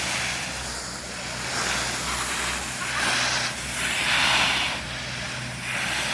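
Skis hissing and scraping over the snow through a run of turns, swelling and fading about once every second or so.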